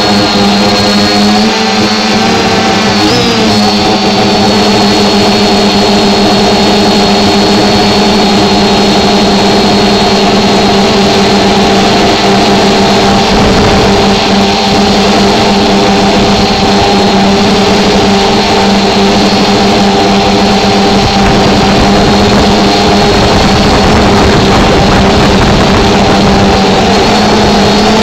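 A small camera drone's electric motors and propellers heard from its own onboard camera: a steady loud hum with a high whine over it, and wind rumbling on the microphone. The pitch wavers briefly about three seconds in, then holds steady.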